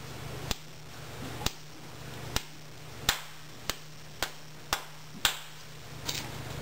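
Farrier's hammer tapping, about eight sharp, separate taps that come closer together toward the end, as in driving horseshoe nails into a hoof.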